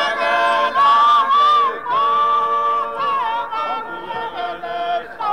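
Unaccompanied singing: voices hold long, drawn-out notes in a slow phrase, with no instruments and no beat.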